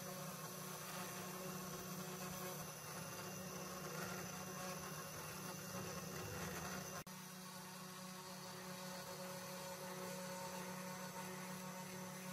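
Comgrow Robo desktop CNC router's spindle running steadily with a buzzing hum as its end mill drills and cuts through 3 mm acrylic sheet. There is a brief dropout about seven seconds in.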